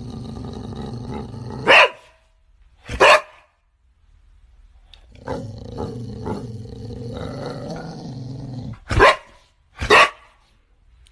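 Boxer dog growling in two long, low rumbles, each followed by sharp single barks: one bark at the end of the first growl and another about a second later, then two barks about a second apart after the second growl.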